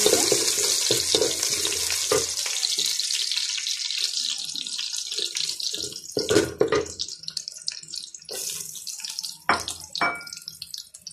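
Whole spices and sliced onions sizzling in hot oil in an aluminium pot, the hiss dying down after a few seconds. A wooden spatula scrapes and knocks against the pot several times.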